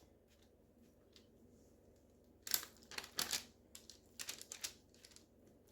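Parchment paper crinkling in short, sharp crackles as hands press portions of ground chicken flat on it. The crackles cluster over about two seconds midway, after a quiet start.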